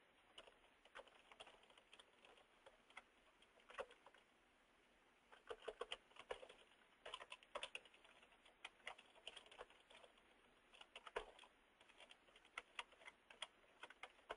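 Computer keyboard typing: faint keystrokes, a few single clicks at first, then short bursts of quick taps with pauses between them.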